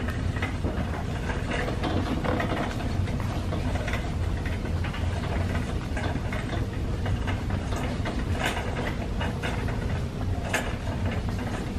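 Wire shopping cart pushed along a store aisle: its wheels rolling in a steady low rumble, with the basket clicking and clattering lightly.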